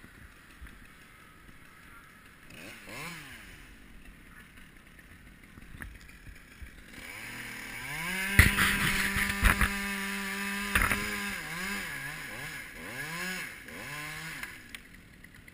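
Two-stroke Stihl chainsaw revving: a short blip, then the engine climbs to full throttle and holds a steady high note for about four seconds, with a few sharp knocks on top. After that it is blipped up and down several times before dropping back.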